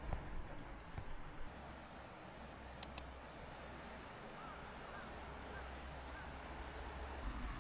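Steady rush of a river flowing, with a few faint bird chirps and two sharp clicks about three seconds in.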